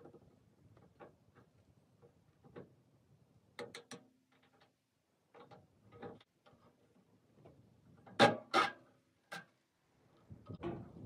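Scattered light clicks and metal knocks of hand tools on the draft spring linkage of a Ferguson TED-20 tractor's top cover, with two louder knocks close together about eight seconds in.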